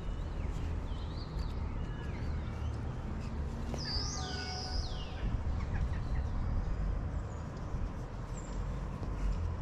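Birds chirping and whistling in short high glides, bunched in the first couple of seconds and again around the middle, over a steady low rumble.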